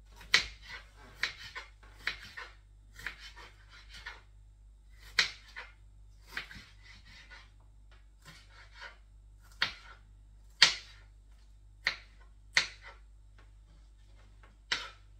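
Kitchen knife chopping bell peppers on a cutting board: single sharp knocks roughly a second apart, irregularly spaced, with a few quick double strokes.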